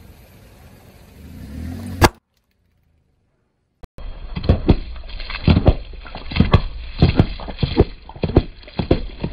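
A car tyre rolling slowly onto a toy figure, with a slow creaking build-up ending in one sharp crack as it gives way about two seconds in. After a short silence, the tyre rolls along a row of drink cartons, bursting them one after another in a quick run of pops, about three a second.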